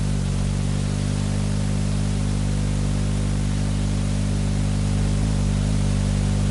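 Steady hiss with a low, even hum underneath: background noise on the sound channel of an old amateur television transmission recorded on videotape.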